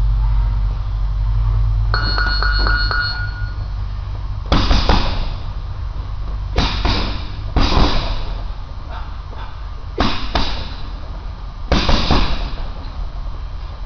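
Gloved punches landing on a hanging heavy bag: a run of sudden thuds, often in quick pairs, starting about four seconds in. A brief run of ringing dings comes about two seconds in, before the first punch.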